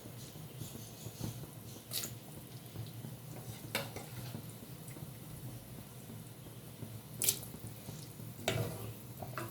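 Boiled white chickpeas being added to a pot of watery masala gravy: liquid sloshing, with a few sharp clinks of a utensil against the pot, the loudest about seven seconds in, over a low steady hum.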